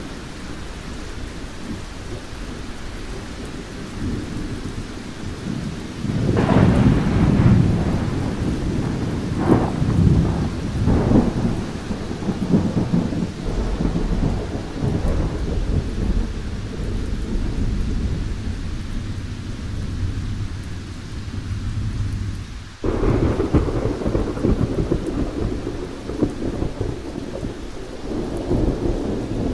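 Thunderstorm: steady rain under continuous rolling thunder. Several loud crackling peals come about six to twelve seconds in, and another rumble starts abruptly later on.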